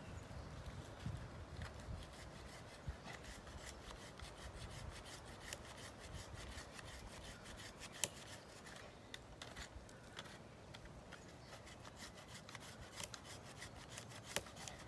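Hand saw rasping back and forth through the maple trunk, faint, with many small sharp clicks from the teeth and wood, more of them in the second half. It is cutting the last wood holding the tree up.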